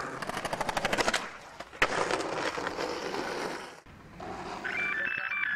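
Skateboard rolling fast over brick paving, its wheels clacking rapidly on the joints, with a sharp knock of the board about two seconds in followed by more rolling. Near the end, electronic music with steady synth tones begins.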